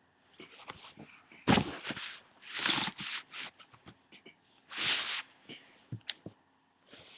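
Handling noise: a sheet of paper being moved and smoothed on a bed cover, rustling in a few short bursts, with a sharp thump about a second and a half in and a click near the end.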